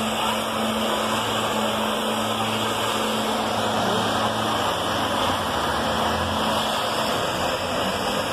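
Engine-driven disinfectant sprayer running steadily: a constant drone with a hiss of spray, the pitch wavering slightly partway through.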